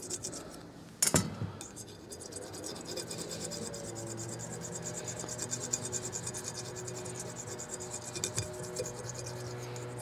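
A copper penny rubbed back and forth on the kerosene-wet blued steel barrel of an old Marlin .22 rifle, a steady fine scraping as it lifts the surface rust without cutting the bluing. A sharp knock about a second in.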